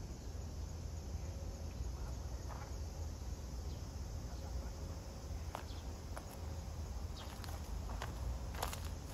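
Steady low outdoor rumble, with a few soft scuffs and clicks from footsteps in the second half, the sharpest near the end.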